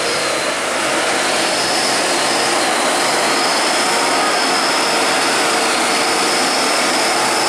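Hino 500 diesel box truck driving close by: a steady, loud rush of engine and road noise with a faint high whine.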